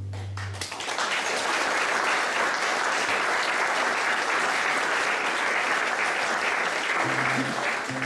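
Audience applauding at the end of a live acoustic song, as the final chord of acoustic guitar and acoustic bass guitar rings out in the first moment. A few instrument notes come in again near the end.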